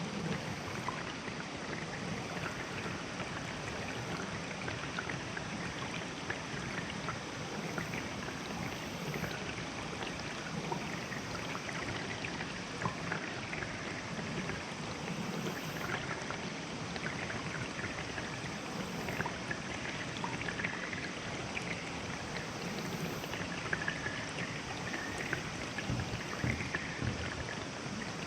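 A shallow river running steadily over stones, with a constant babble sprinkled with small splashes and gurgles.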